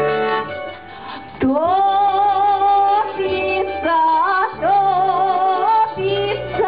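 A woman singing a folk song solo over instrumental accompaniment. Her voice comes in about a second and a half in, sliding up into a long held note, and the low accompaniment chords return near the end.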